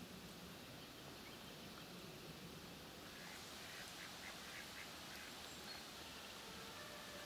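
Ducks quacking, a quick run of short calls about three seconds in, faint over a steady background hiss.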